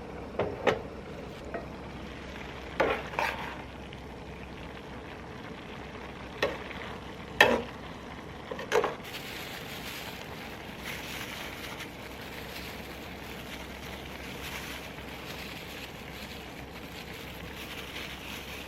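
A utensil knocks sharply against a cooking pan several times, then from about nine seconds in there is a steady sizzle of seafood frying in the pan.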